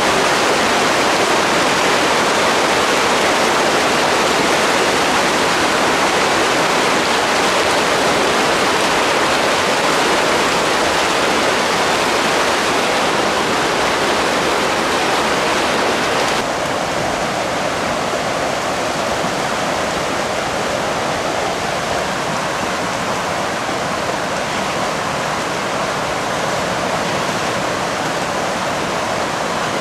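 Steady rush of shallow river water. About halfway through, the rush drops a little in level and loses some of its hiss.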